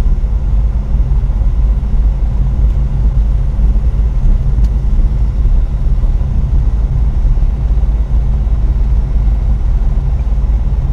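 Tecnam P92 JS light aircraft's Rotax 912 flat-four engine and propeller running while taxiing: a steady low drone heard inside the cockpit under a headset earcup.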